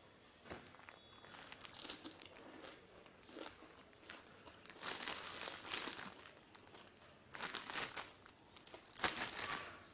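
Crunchy chewing of raw vegetables close to the microphone, in about four bursts of a second or so each.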